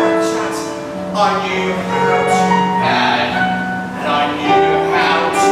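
A man singing a musical-theatre number over instrumental accompaniment, holding some notes for a second or more between shorter phrases.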